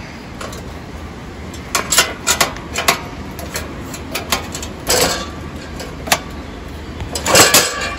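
Sharp metallic clicks, knocks and rattles from handling the leg and wing screw of a stainless-steel skewer grill as the screw is loosened and the leg rod is dropped and locked: a few clicks about two seconds in, single knocks near five and six seconds, and a louder rattle near the end.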